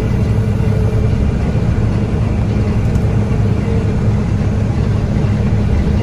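Combine harvester running steadily while picking corn, heard from inside its cab: an even, low engine and machinery drone.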